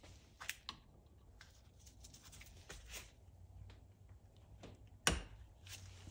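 Scattered light clicks and taps of parts being handled, with a sharp knock about five seconds in and a smaller one about half a second in.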